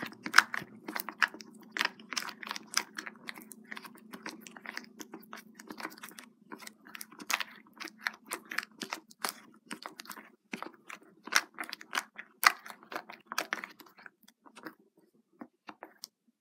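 Shaving foam and PVA glue being stirred together with a craft stick: irregular wet squishing and crackling clicks, thinning out and stopping shortly before the end.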